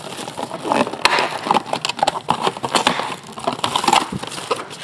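Hands handling trading cards and foil card-pack wrappers: a run of quick, irregular crinkles, flicks and clicks.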